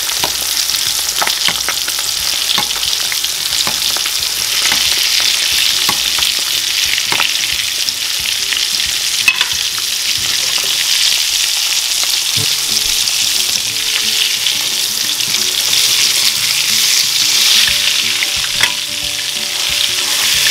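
Egg-battered dried fish fillets frying in shallow hot oil in a pan: a steady sizzling hiss with scattered small crackles and pops, and one sharp tick about nine seconds in.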